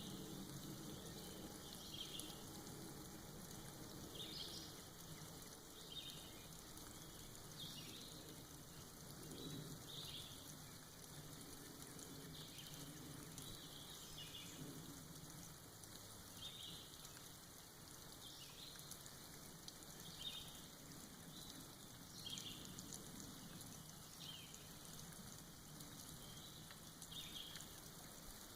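Soft rain falling and dripping off moss in a forest, a faint steady patter, with short high ticks or chirps recurring every second or two.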